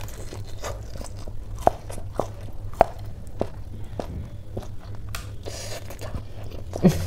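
Close-up biting and chewing of a crisp, batter-fried snake bean: a run of sharp crunches, about two a second.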